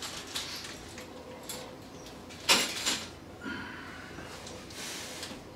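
Handling and rustling of a small plastic bag of RC hardware (connecting rods and ball links), with one sharp noise about two and a half seconds in that is the loudest sound.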